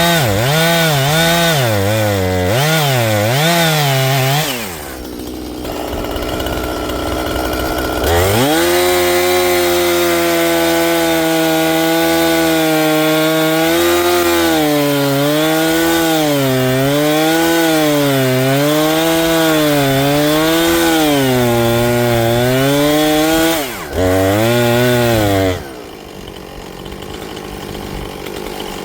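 Two-stroke chainsaw running at high revs while cutting wood, its pitch rising and falling again and again as the chain bites. The throttle is let off about four and a half seconds in, opened again a few seconds later, and let off again near the end.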